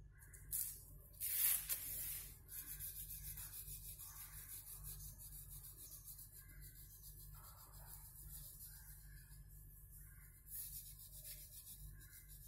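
Oil pastel rubbed back and forth on drawing paper, colouring in: a loud scratch about a second and a half in, then quick rubbing strokes at about four a second, with another burst near the end.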